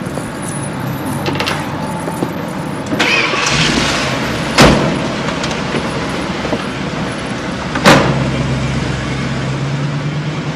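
Prison van doors slammed shut twice, about three seconds apart, then the van's engine running with a low hum that rises slightly in pitch.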